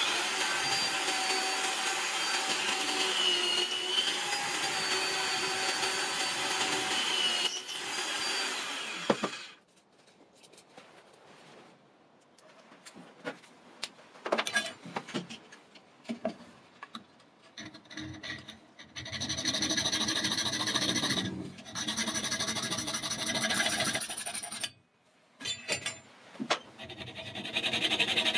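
A drill in a Bosch drill stand runs steadily for about nine seconds, boring through a wooden knife-handle scale clamped to the steel blade. Then come a few seconds of light knocks and clicks, and in the last third a small hacksaw cuts brass pin rod in steady strokes with short pauses.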